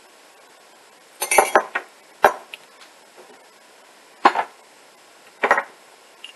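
Metal teaspoon clinking and knocking against a ceramic mug and canister while instant coffee is spooned out: a quick cluster of clinks about a second in, then single knocks at about two, four and five and a half seconds.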